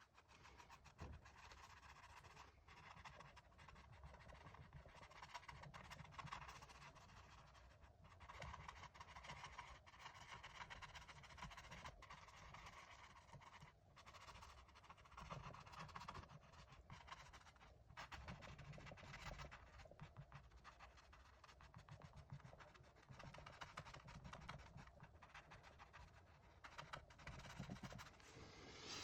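Faint scratching of a paintbrush working oil paint on canvas: short strokes that come and go in uneven swells.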